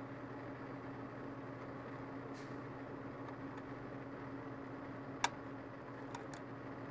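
Steady low machine hum with one sharp click a little after five seconds in and a couple of faint ticks soon after.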